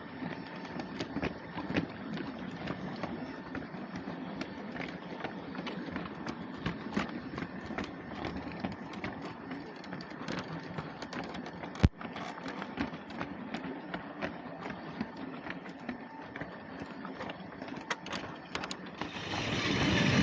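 LEGO train running on plastic track: a steady small-motor whir with scattered light clicks, and one sharp click about twelve seconds in.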